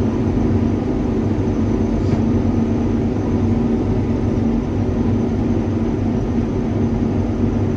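Combine harvester running steadily while harvesting wheat: an unchanging engine and machinery drone with a steady hum over a low rumble.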